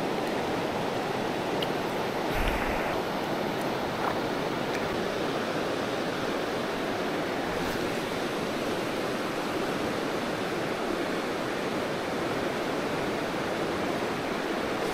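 Steady rushing of a clear mountain river running over rocks and riffles, with a brief soft knock about two and a half seconds in.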